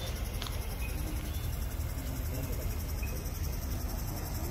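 Outdoor background noise around a standing crowd: a steady low rumble with a faint, evenly pulsing high trill, and a few faint scattered voices. A single light click sounds about half a second in.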